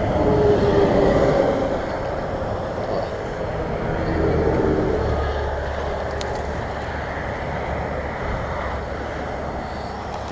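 Road traffic passing close by: vehicles driving past, the noise swelling about a second in and again around four to five seconds in, followed by a low rumble that fades.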